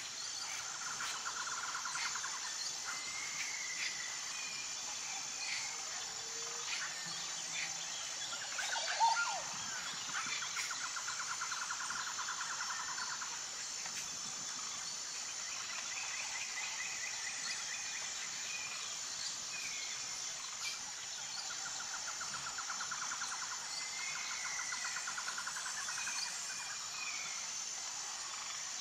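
Insects buzzing steadily in a high-pitched chorus, with birds calling over it in repeated trills and short chirps, and one sharper call about nine seconds in.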